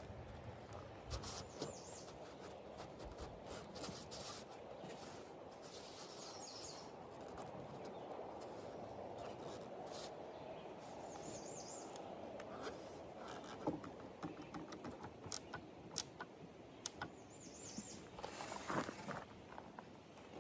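Faint outdoor background with a bird giving a short chirp every five seconds or so, and scattered sharp clicks and scrapes in the second half.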